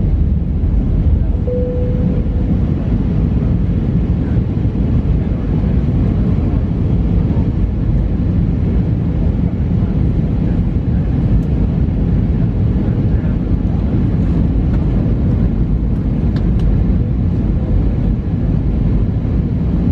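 Steady cabin noise of an Airbus A320 in descent, heard from a window seat: the rumble of the engines and rushing air, mostly low and unchanging. A short faint tone sounds about one and a half seconds in.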